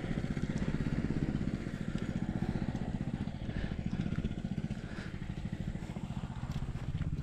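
Small vehicle engine running steadily as it is ridden, a rapid even pulsing.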